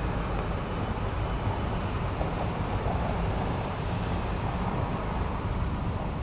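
E2 series Shinkansen running along an elevated track: a steady low rumble of the train with an even haze of noise over it.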